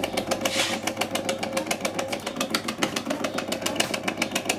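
Electric ice cream maker running with its stirring paddle drive knocking rapidly and evenly, about ten knocks a second, over a steady hum. The machine sounds strange and crunchy, which the owners take for likely gearbox damage, though it could also be the motor.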